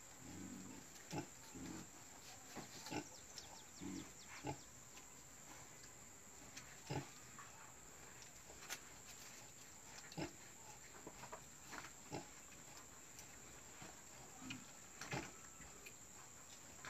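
Faint low grunts from a sow nursing her newborn piglets, mostly in the first few seconds and once more near the end. Short sharp sounds are scattered throughout.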